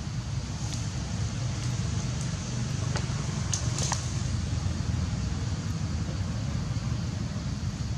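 Steady low rumble of outdoor background noise, with a few faint high ticks about three and four seconds in.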